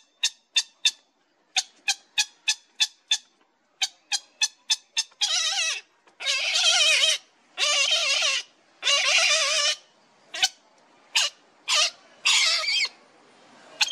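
Heron chicks begging for food. First comes a rapid series of short clicking calls, about three a second. From about five seconds in there are several long, harsh, rasping calls of about a second each, then shorter ones near the end.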